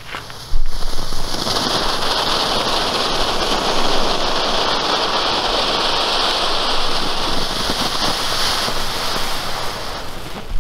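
Evolution Fireworks EVO Conic XL, a large category F1 cone fountain, burning. After a brief quieter fuse sputter, it bursts into life about half a second in and sprays sparks with a loud, steady hiss that eases a little near the end.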